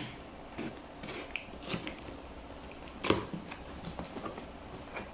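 Cardboard shipping box being opened by hand: packing tape pulled off and the flaps worked open, with scattered crackling and rustling and one sharper snap about three seconds in.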